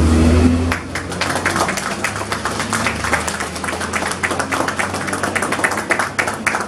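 Small crowd of guests clapping, starting about a second in and carrying on steadily.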